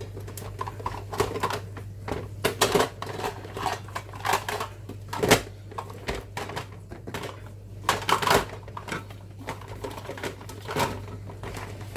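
Food storage containers and lids knocking and clattering as they are handled and stacked into a kitchen cupboard, in irregular clicks and knocks, the sharpest about five seconds in, over a low steady hum.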